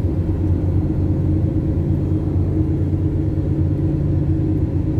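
Steady engine drone and road noise heard inside the cabin of a moving Toyota car, low and even throughout.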